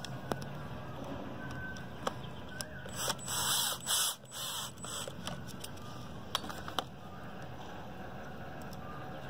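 Cordless drill-driver run briefly twice in quick succession about three seconds in, turning a screw on the pump motor's wiring end, with a few light clicks of tools and wires being handled around it.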